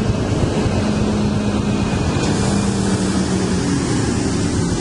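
Scania P420 heavy-haul truck's straight-six diesel and its lowbed trailer driving past close by: a steady engine hum over tyre and road noise.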